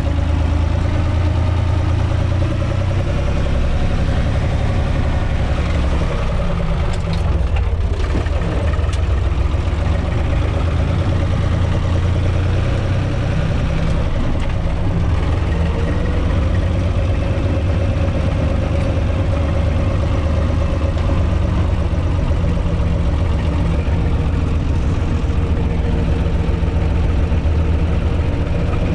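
UTB 445 tractor's diesel engine running steadily under way, heard from inside its cab.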